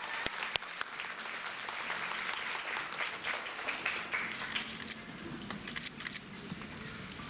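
Audience clapping, with scattered sharp clicks; the clapping thins out about two-thirds of the way through.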